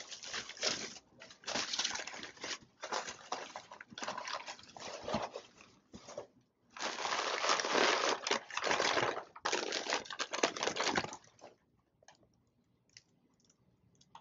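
Bubble wrap and white packing paper rustling and crinkling in repeated bursts as a parcel is unwrapped by hand. The rustling stops about eleven seconds in, leaving only a few faint clicks.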